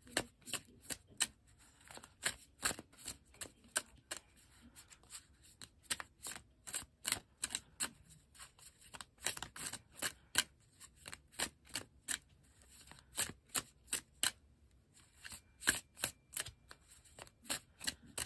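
A tarot deck being shuffled by hand: a long string of light, irregular card clicks and flicks, about two or three a second.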